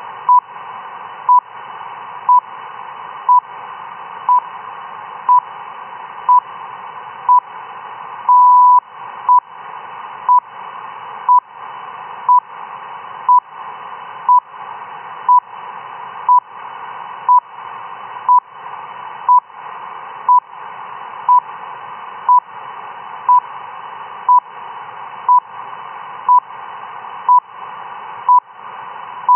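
RWM shortwave time signal station heard through a radio receiver: short 1 kHz beeps once a second over steady static hiss. About eight seconds in comes a longer beep of about half a second, the station's minute marker.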